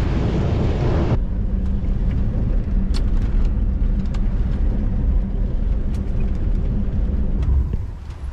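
Wind buffeting the microphone outside an SUV on a dirt trail, then, from about a second in, the SUV heard from inside the cabin: a steady low rumble of engine and tyres on packed dirt, with a few sharp clicks from gravel and rattles.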